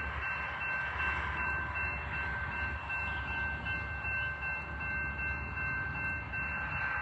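Train passing with a steady low rumble, and steady high-pitched tones running over it.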